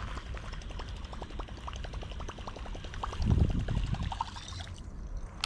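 Water splashing and trickling close to the microphone, with many small drips and ticks and one louder surge about three seconds in.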